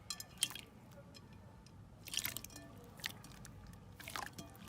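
Slime squished and pressed by hand, giving short bursts of wet crackling and popping, about four bursts in a few seconds.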